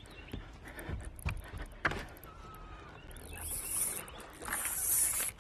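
Baitcasting reel's drag buzzing as a hooked bass pulls line off against it, starting about three seconds in and lasting about two seconds, after a few sharp clicks. The drag is slipping because it was turned the wrong way, loosened instead of tightened.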